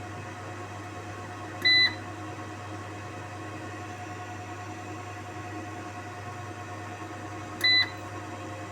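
Two short, high-pitched beeps about six seconds apart from a solar hybrid inverter, over the steady electrical hum of the running inverter and workshop equipment.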